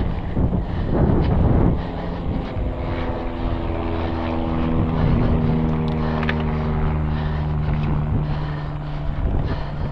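Mountain bike riding fast down a dirt singletrack: tyres and frame rattling over the rough ground, loudest about a second in, then a steady buzzing tone through the middle, with wind on the handlebar-camera microphone.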